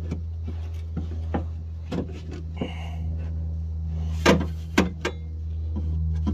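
Scattered metal clicks and knocks as a window regulator and motor assembly is worked into place inside a 2000 Toyota Camry door, the loudest about four seconds in, with a brief squeak a little before. A steady low hum sits underneath.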